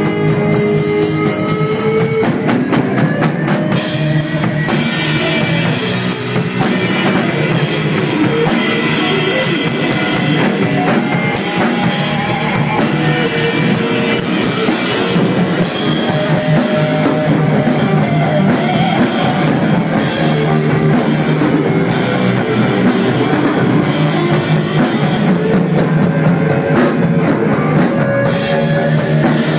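Stoner rock band playing loud and steady on electric guitar, bass guitar and drum kit with cymbals.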